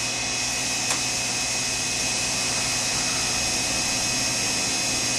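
Steady motor hum and whine from a Sherline CNC cam-grinding machine running its program, with one short click about a second in.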